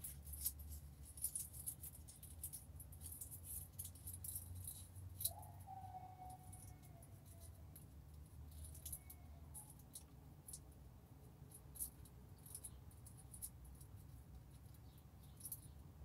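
Faint, irregular crisp clicks and crackles of someone eating: food being picked at with the fingers and chewed. They come thickly for the first few seconds, then more sparsely, over a low steady hum.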